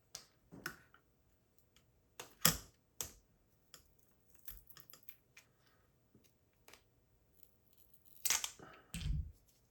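Scattered clicks and light taps of small hard-drive parts being handled, with a louder scrape and a dull thump near the end.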